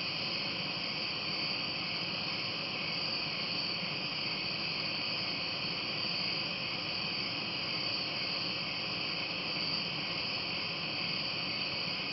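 Steady, unbroken chorus of night-singing insects, a high-pitched trill with no pauses.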